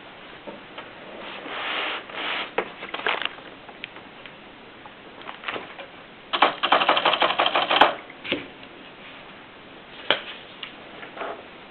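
Olympia Elite typewriter being typed on: scattered keystrokes, then a fast run of keystrokes about six seconds in, lasting about a second and a half and ending in a sharp click, followed by a few single keystrokes.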